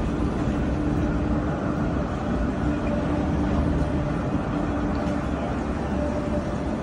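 Steady electrical hum of an Alstom Citadis tram beside the platform, a low even tone over street noise.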